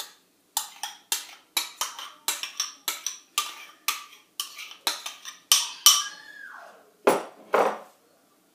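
Metal spoon scraping and knocking against the inside of a bowl as soft fromage blanc is scraped out, a quick run of clinks about four a second. Near the end come two louder scrapes.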